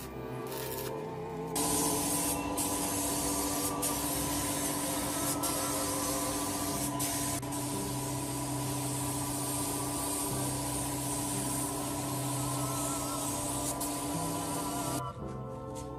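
Paint spray gun hissing steadily as it sprays paint onto a restored tiller's gearbox and frame. The hiss starts about a second and a half in and cuts off shortly before the end, with background music underneath.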